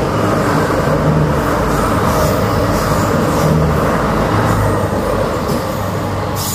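Irish Rail diesel multiple unit passing close at speed: a loud, steady rumble of wheels on rail, with the low hum of its diesel engines.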